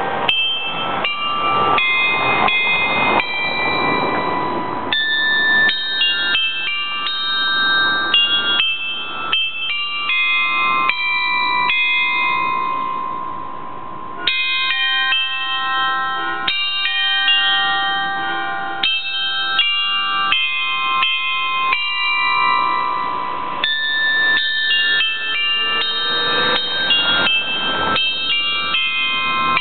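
Façade glockenspiel of small hanging bells playing its noon tune. The bells are struck one note after another, with a short lull about halfway through while one note rings on, then the tune resumes.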